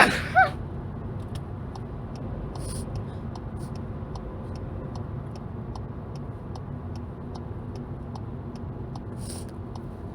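Car cabin road noise, a steady low rumble, with a light, regular ticking throughout. The tail of a woman's sneeze is heard right at the start, and there are two short sniffs from her runny nose, one early and one near the end.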